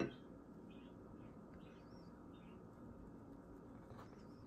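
Faint scattered small-bird chirps, short and irregular, over quiet room noise, with one sharp click right at the start.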